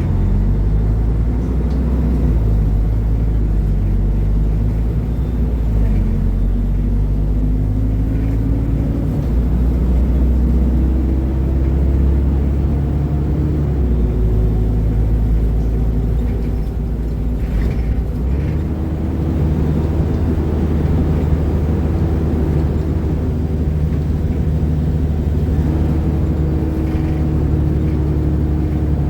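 Diesel engine of a Mercedes-Benz O500UDA bi-articulated bus with a ZF automatic gearbox, running under way. Its note climbs slowly, then drops back and climbs again several times as the gearbox changes gear.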